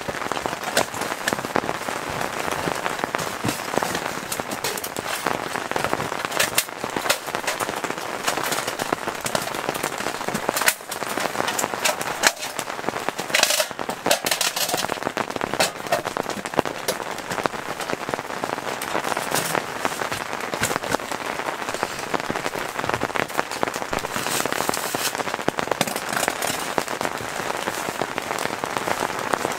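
Steady rain falling on a tent's fabric, dotted with sharp clicks and crinkles of aluminium foil and stove parts being handled close by, busiest about halfway through.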